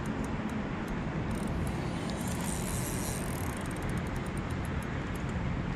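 Steady wind rumble on the microphone, with two short spells of faint, fast, high-pitched ticking, near the start and about halfway through.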